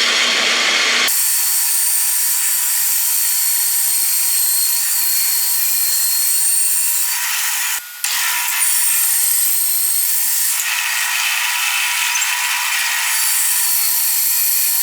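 A woodworking power tool runs steadily through wood, a loud hiss with a high whine on top. It breaks off briefly about eight seconds in.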